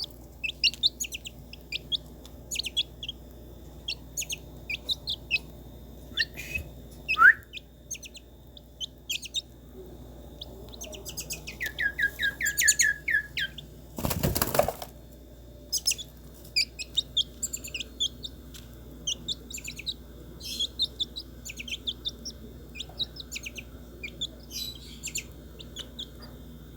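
Birds chirping and calling with many short, high notes, including a run of quick repeated lower notes about 12 seconds in. A brief loud whoosh cuts across them about 14 seconds in.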